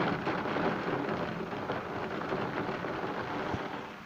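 Heavy rain pouring down, a steady dense hiss that eases slightly near the end.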